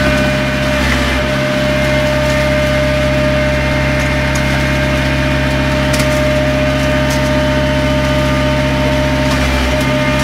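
Attisani horizontal boring machine running under hydraulic drive from its power unit: a steady mechanical hum with a constant high whine, unchanging throughout.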